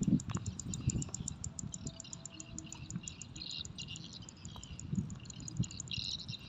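An insect chirping in a fast, even rhythm of about six high ticks a second, with birds chirping and some low rustling underneath.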